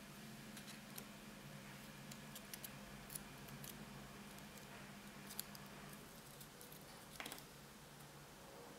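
Faint rustling and scattered light clicks of small cardstock pieces being handled and pressed together, over a low steady hum.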